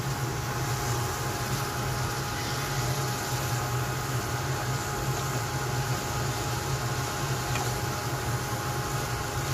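Chicken strips and carrot strips sizzling in a pan as they are stirred with a wooden spatula, over a steady low machine hum.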